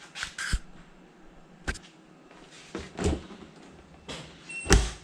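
Several separate knocks and clunks, the loudest one near the end.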